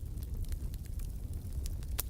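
Wood fire burning in a fireplace, a steady low rumble of the flames with scattered sharp crackles and pops.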